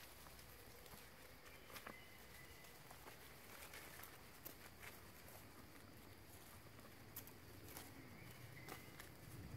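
Near silence: faint outdoor ambience with a few soft clicks and rustles of dry leaf litter as macaques shift and move about on it.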